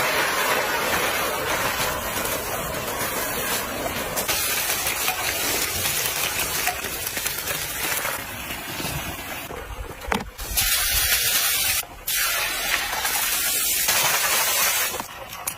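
Food frying in hot oil: a loud, steady sizzle. It breaks off sharply for a moment about twelve seconds in.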